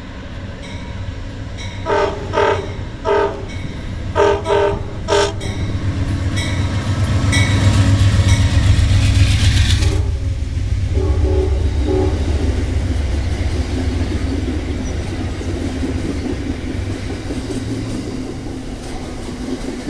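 An Amtrak passenger train sounds a series of six short horn blasts as it leaves the tunnel, then passes close by with a rising, heavy rumble from the locomotive that peaks and suddenly loses its high end. Two fainter short horn notes follow, and then the passenger cars roll by with a steady rumble and wheel clatter that slowly fade.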